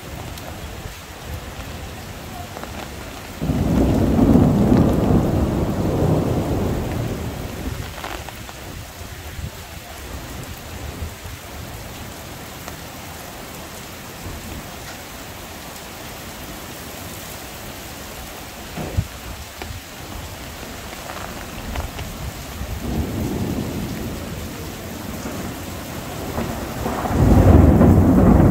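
Heavy rain falling steadily, with thunder: a loud rumble breaks in suddenly about three seconds in and dies away over a few seconds, a softer rumble swells past the middle, and another loud one begins near the end.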